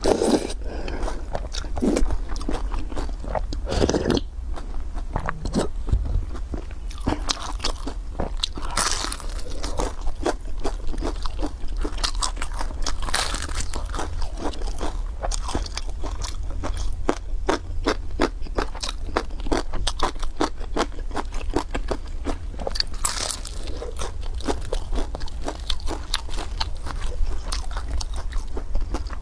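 Close-miked eating: bites into crisp pan-fried beef-filled pies, with the crust crunching and the mouthful chewed in a dense run of irregular crackles.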